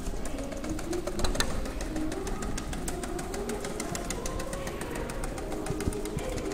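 INB8150 channel letter CNC bending machine running as it feeds and bends a metal letter strip: its motors whine at a pitch that keeps sliding up and down, with sharp clicks from the feed and bending head, two of them louder about a second and a half in.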